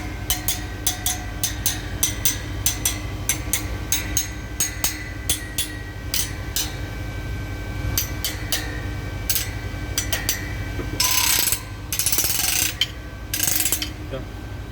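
Gas turbine compressor vanes clicking metal-on-metal as they are checked for tightness, about two to three sharp clicks a second at first and then more sparsely. Near the end come three longer scraping rasps. A steady low machinery hum runs underneath.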